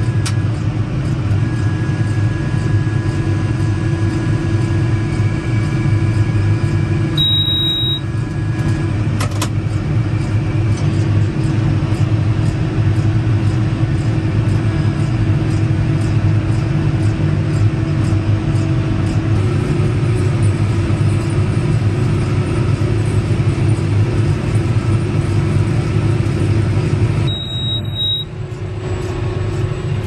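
Inside the cab of a John Deere 6R tractor pulling a Fendt round baler through straw: the engine and baler run with a steady low hum. A short high electronic beep sounds twice, about twenty seconds apart.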